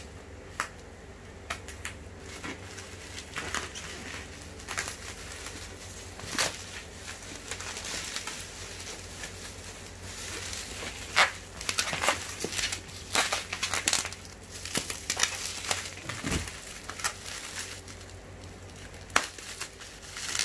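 Plastic bubble wrap being handled and pulled open by hand: irregular crinkling and rustling with sharp crackles, busiest in the second half.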